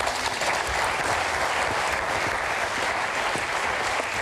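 Studio audience applauding, a dense, steady clapping that holds at one level throughout.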